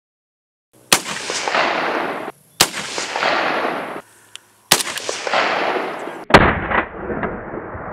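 AK-47 rifle fired in single shots: three reports about two seconds apart, each echoing away over more than a second, then another sharp shot and a couple of quieter cracks near the end.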